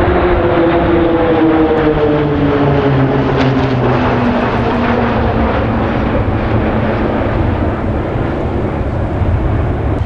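A formation of Pilatus turboprop trainers passing overhead. Their engine and propeller drone falls steadily in pitch over the first few seconds as they go by, over a continuous rumble.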